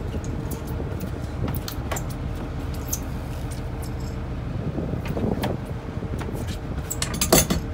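Boat engine idling, a steady low rumble with a constant hum, with scattered light clicks and knocks from the fishing gear and deck.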